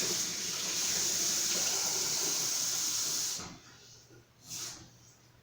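Water running steadily from a tap into a container, shutting off about three and a half seconds in, followed by a brief faint swish.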